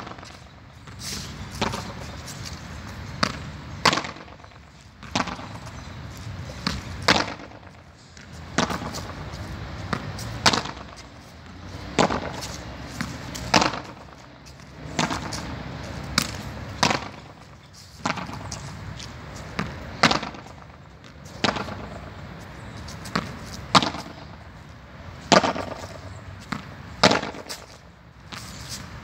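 Padel racket striking a ball again and again in a steady rally against a concrete wall: a sharp hit about every one and a half to two seconds, with smaller knocks of the ball off the wall and the concrete floor in between.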